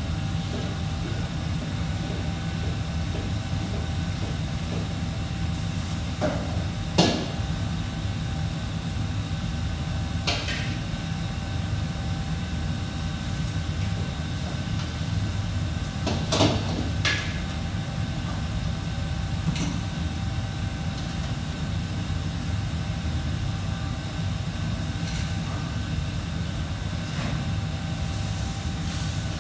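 Commercial kitchen ambience: a steady low hum of fans or ventilation, broken by a few short clatters of pans and utensils, the loudest about seven seconds in and a pair around sixteen to seventeen seconds in.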